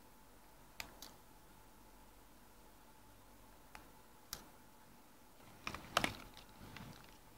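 Faint, scattered clicks and taps from hands working Scotch tape against a DSLR's open lens mount: two about a second in, two around four seconds, and a busier cluster of clicks near six seconds followed by softer scuffs.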